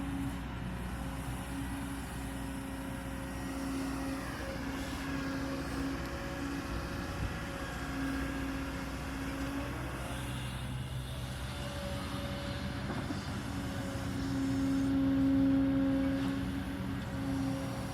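Kobelco 220 hydraulic excavator's diesel engine running at work, a steady drone with a hum that swells and eases as the load changes, loudest about fifteen seconds in.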